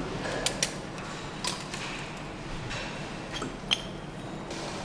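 Light clicks and taps of parts and hose fittings being put on an engine by hand: a few short sharp clicks, the sharpest a little before the end, over a steady factory hum.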